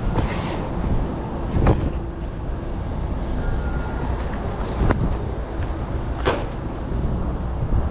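Steady machine noise of a busy commercial kitchen, with four sharp knocks and clatters of dishes being handled.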